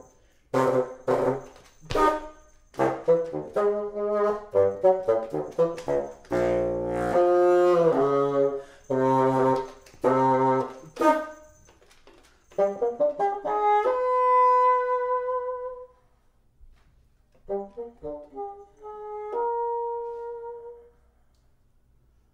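Solo bassoon playing a contemporary piece: a quick string of short, detached notes for about eleven seconds, then after a brief gap a rising run into a held note. After a pause come a few more short notes and a last held note that stops about a second before the end.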